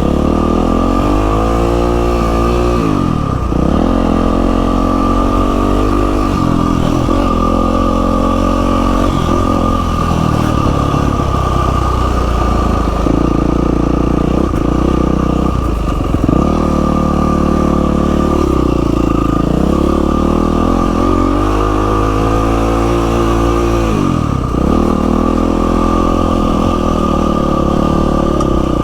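Yamaha WR450F dirt bike's single-cylinder four-stroke engine under way, its pitch climbing as it revs and dropping back off the throttle or at a shift, several times over.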